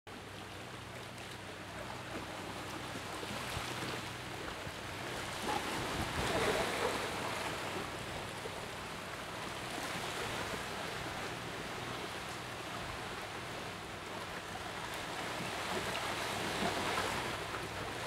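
Steady rushing ambient noise, like wind or distant surf, that swells about six seconds in and again near the end.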